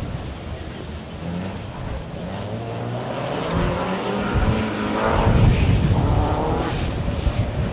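Mercedes 190E rally car's engine revving hard under acceleration, its pitch rising as it draws nearer and loudest about five seconds in.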